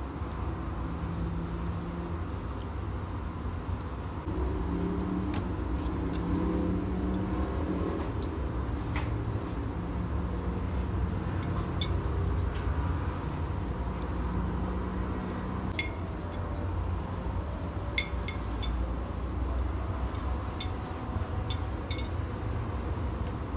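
Steady low rumble of background noise, with several short, light clinks of a metal fork and spoon against a plate in the second half.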